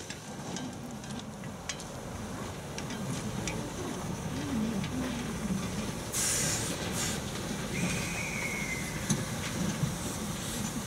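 Blanc-Misseron 020+020 Mallet steam tank locomotive creeping over metre-gauge trackwork, with a steady steam hiss and a few sharp clicks of the wheels on the rails. A louder blast of steam hiss comes about six seconds in, and a short high squeal a couple of seconds later.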